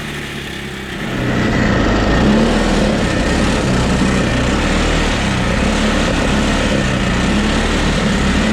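Stage 2 Predator 420cc single-cylinder engine on an ATV, exhausting through a 2014 Ford Mustang 5.0 muffler, getting louder about a second in and then running steadily under load.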